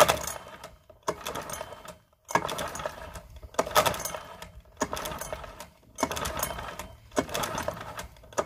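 Parsun 4 four-stroke outboard cranked by its recoil pull-starter, about seven quick pulls in a row, roughly one every second and a quarter: each pull a rattly whir of the rope and starter as the engine turns over without firing, fuel shut off, during a compression test.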